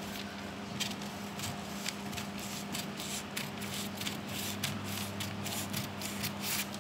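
Scissors cutting through pattern paper: a series of crisp snips, coming quicker after about two seconds.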